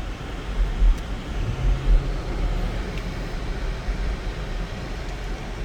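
Cabin noise of a 2004 Lexus GX 470 driving on a snowy road: a steady rumble of tyres and road. Low thuds come through in the first two seconds, then it settles into an even drone.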